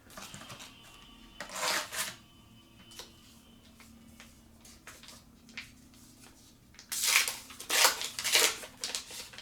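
Rustling and crinkling of a trading-card booster pack wrapper and cards being handled, in two bursts: one about a second and a half in, and a longer, louder one from about seven seconds in.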